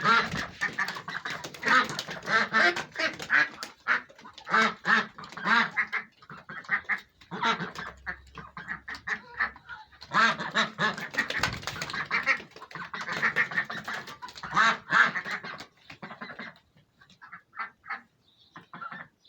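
A flock of white domestic ducks quacking: many short calls in quick, overlapping succession, thinning to scattered calls near the end.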